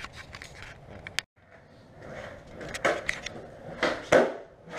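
Skateboard on a concrete garage floor: a few sharp clacks of the board popping and landing, the loudest near the end.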